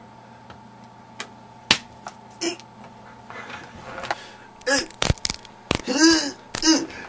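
Sharp slaps and hits, a few scattered at first, then a quick flurry about two-thirds of the way through, mixed with short pained cries.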